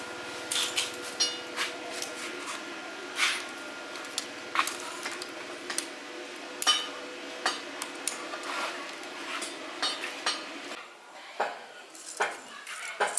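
Irregular metallic clinks and taps of hand tools and metal motorbike parts being handled and set down, some ringing briefly. Under them runs a faint steady hum that cuts out about eleven seconds in.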